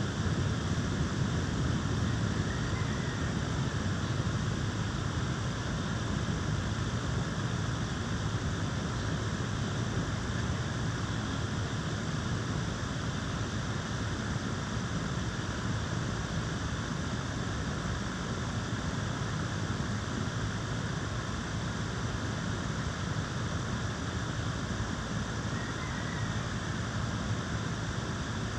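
Steady, even noise that holds constant, heaviest in the low range, with no distinct events.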